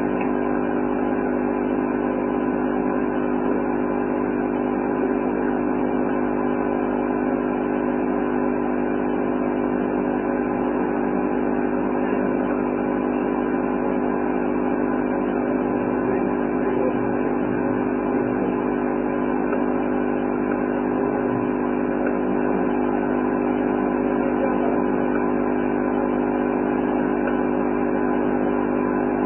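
A steady mechanical hum with several fixed low tones over a dull noise, unchanging throughout.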